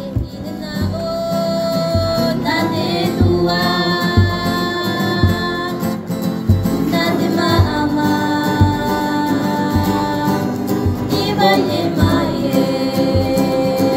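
Background music: a song with a singer's long, wavering held notes over a steady beat.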